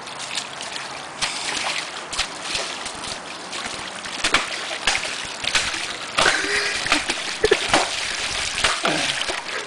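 Poles slapping and churning the water of a shallow stream: repeated irregular splashes over the steady sound of running water.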